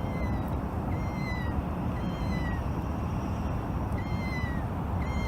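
Electronic meow from a cat sound keychain, a short high pitched recorded meow played about once a second with a pause in the middle, four or five times. A steady low background noise runs underneath.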